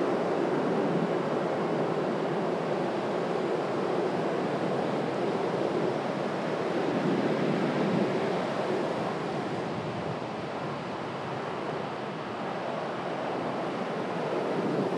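Sea surf breaking and washing up the beach: a steady rush of waves that swells a little about halfway through, then eases.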